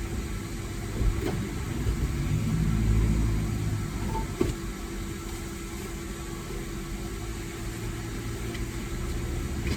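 A motor vehicle's low, steady engine rumble, swelling for a couple of seconds about two seconds in, with a faint steady hum above it.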